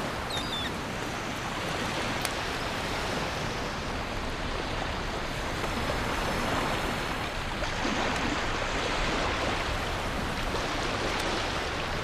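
Sea surf washing steadily onto a beach: an even, continuous rush of waves.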